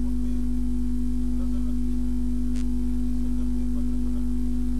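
Steady electrical hum, a low drone with a strong steady tone above it, with faint voices in the background and one brief tick about halfway through.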